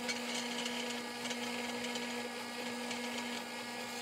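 Drill press running with a steady hum while its bit drills a small hole in 2-inch square steel tube.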